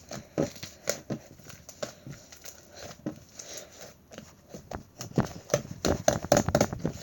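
Chewy white slime being squeezed and stretched by hand, giving irregular sticky clicks and pops. The pops come thicker and louder in the last two seconds.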